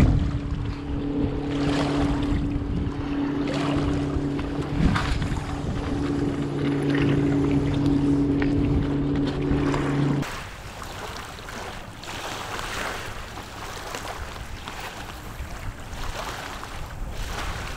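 Wind buffeting the microphone over the wash of surf, with a steady low engine-like hum for the first ten seconds that cuts off abruptly.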